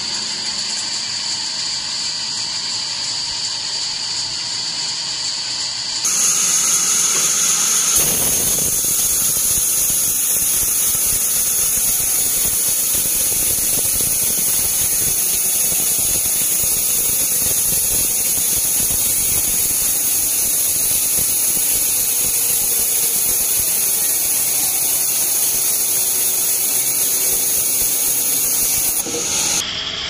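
Band sawmill blade cutting lengthwise through a teak log: a steady high whine over a rushing hiss. The sound gets louder and fuller about six to eight seconds in, then holds steady.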